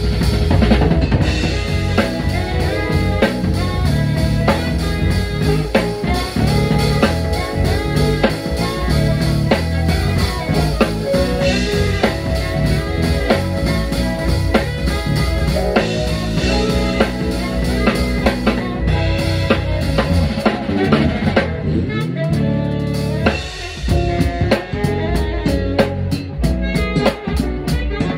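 Live band playing, drum kit to the fore over bass, keyboards, guitar and saxophone. The band thins out briefly for about a second around three-quarters of the way through, then comes back in.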